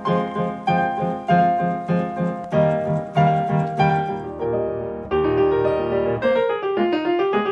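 Solo piano music: a repeated figure of struck notes and chords, a new note about every half second, turning to fuller held chords about five seconds in.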